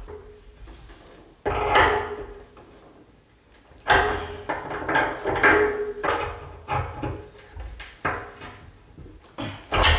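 Water pump pliers gripping and turning the compression nut on the bottom joint of a new thermostatic radiator valve while it is tightened, with a second pair holding the valve body: metal scraping and clicking. There is one sudden sound about a second and a half in, then a string of short strokes from about four seconds in.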